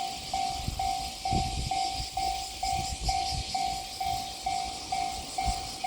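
Japanese level-crossing warning bell ringing its steady electronic "kan-kan" tone, about two strokes a second. Irregular low rumbling and knocks sound underneath it.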